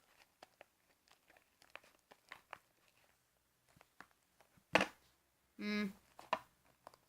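Sticky slime being stirred in a bowl: scattered small wet clicks and crackles, with one louder smack a little before five seconds in.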